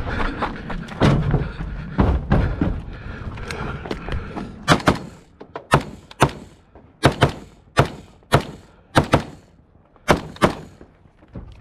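A few heavy thumps, then a string of about a dozen gunshots, many fired in quick pairs, at steel plate targets.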